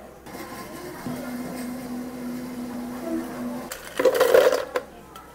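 Milk poured from a carton into a plastic blender jar, a steady pour for about three seconds. Then crushed chocolate cookies are tipped into the jar with a loud, brief rattle about four seconds in.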